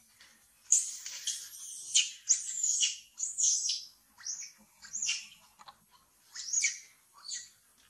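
Young long-tailed macaque squealing: a string of short, high-pitched calls that rise and fall in pitch, starting about a second in and repeating with brief gaps.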